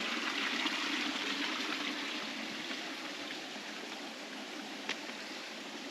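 Mountain stream rushing steadily over rocks, easing off a little over a few seconds.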